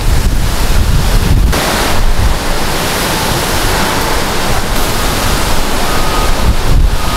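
Wind blowing outdoors and buffeting the microphone: a loud, steady rushing noise with gusty low rumbling.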